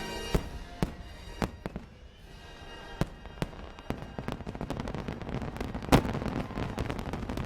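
A fireworks display: sharp bangs of aerial shells in quick succession, over the show's music. The bursts thicken into a denser din over the second half, with the loudest single bang about six seconds in.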